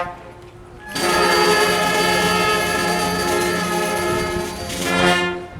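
School brass band holding a long sustained chord of brass and woodwinds after a short break. The chord lasts about four seconds, swells near the end and cuts off, like the closing chord of the piece.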